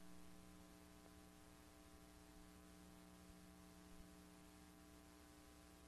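Near silence: a faint, steady electrical hum with light hiss from the blank lead-in of a VHS tape being played back.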